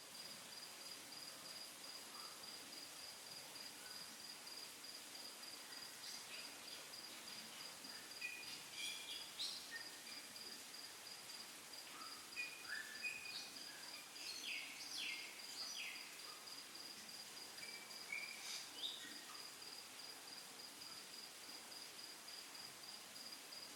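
A cricket chirping steadily in a fast, even high-pitched pulse, faint, with a few short higher chirps scattered through the middle.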